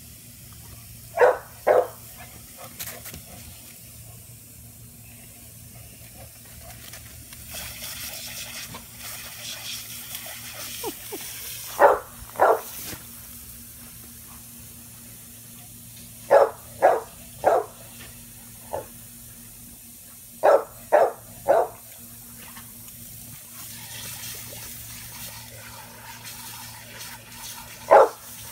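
A dog barking in short clusters of two to four sharp barks, about a dozen in all, as it snaps at spray from a garden sprinkler. The spray hisses faintly between the barks.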